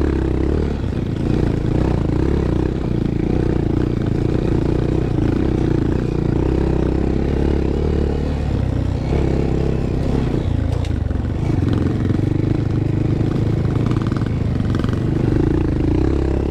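Honda Monkey's small single-cylinder engine running under load while riding a rocky trail, its note rising and falling with the throttle.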